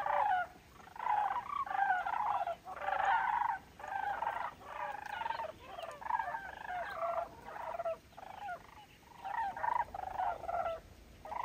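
A flock of sandhill cranes calling in flight overhead: many overlapping calls in bouts about once a second, growing fainter toward the end as the flock moves away.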